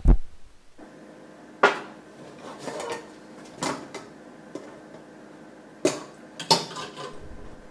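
Stainless steel pressure cooker and pot clanking as they are handled: a sharp metal clank at the start, then a few separate knocks and scrapes a second or two apart as the cooker's lid is worked free by its handles and lifted off.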